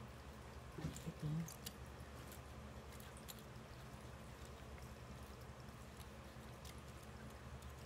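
Faint scattered clicks and taps of a small battery and earphone being handled in gloved hands, over a steady low hum. A brief short voice-like sound comes about a second in.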